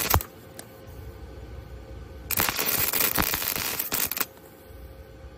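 A sharp click, then a welding arc crackling and sputtering for about two seconds as a short bead is laid on the steel, stopping abruptly a little past the middle.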